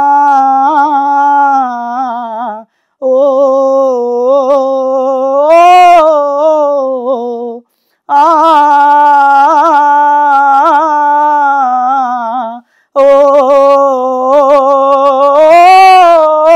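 A male gaana singer singing a wordless melody, unaccompanied, as the lead-in to a Tamil gaana song. It comes in four long phrases with short breaths between, swelling up in pitch on a held note near the end of the second and of the last phrase.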